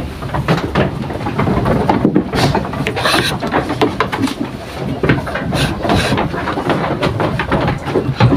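Irregular wooden knocks, scrapes and rubbing, the clatter of moving about and handling things in a wooden sheep pen.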